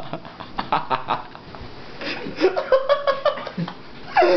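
Small clicks and rustling, then about two seconds in a person's wordless voice, drawn out and wavering in pitch, mixed with laughter.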